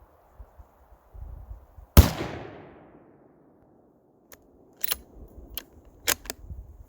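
A single shot from a Thompson Center Compass II Compact bolt-action rifle in .223, loud and sharp with a ringing tail of about a second. Two to four seconds later comes a quick run of short metallic clicks as the bolt is worked to chamber the next round.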